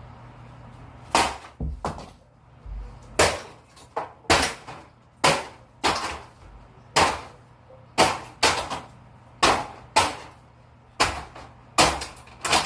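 Handgun shots fired in quick, irregular succession, about twenty sharp bangs, one to two a second, each with a short ringing tail, starting about a second in.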